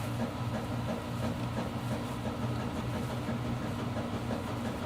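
Steady low mechanical hum of room machinery, unchanging throughout.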